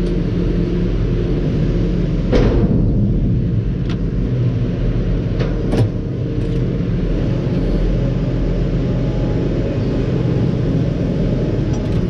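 New Holland tractor's diesel engine running steadily, heard from inside the cab, with a few short knocks, the loudest about two seconds in.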